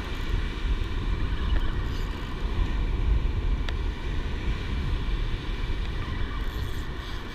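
Wind buffeting the microphone over surf breaking on the beach, a steady low rumble.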